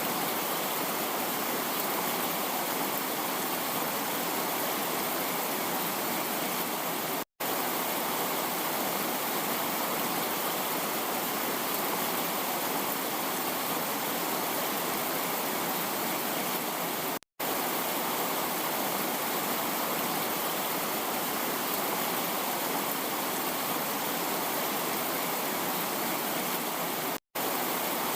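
Heavy rain falling as a dense, steady hiss of water, broken three times by a momentary gap of silence about ten seconds apart.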